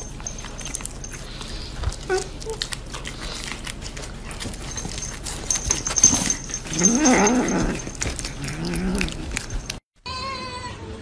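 A cat licking and chewing at a mango, making many small wet smacks and clicks. About seven seconds in, a wavering, growl-like cat call stands out above them, and a weaker one follows.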